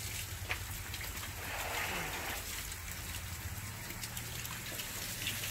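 Faint trickling water over a steady low hum, with a brief louder hiss about two seconds in.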